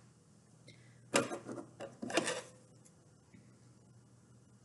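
Two sharp clatters about a second apart, with a few small ticks between them: craft materials and tools being handled on a tabletop.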